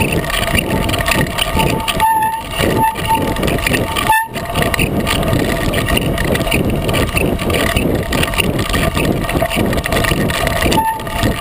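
Steady crunching and rattling of a 36-inch Coker unicycle tire rolling fast down a loose gravel trail, picked up close by a camera mounted on the unicycle. A few short squeaks come through, about two seconds in and again near the end.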